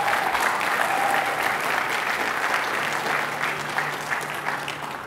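Audience applauding, the clapping dying away gradually toward the end.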